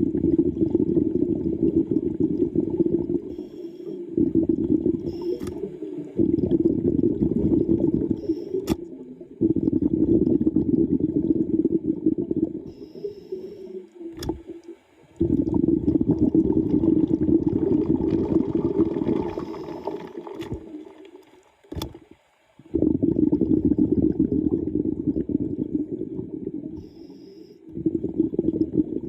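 Underwater bubbling rumble of a scuba diver's exhaled breath, in long bursts of a few seconds with brief pauses between breaths, and a few sharp clicks.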